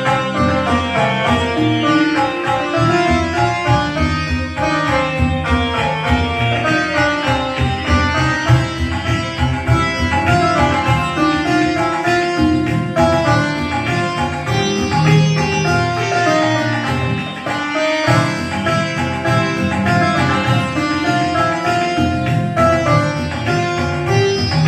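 Casio CT-X9000IN electronic keyboard playing a Hindu devotional bhajan melody on its sitar voice, note by note, over a steady beat from the keyboard's rhythm accompaniment.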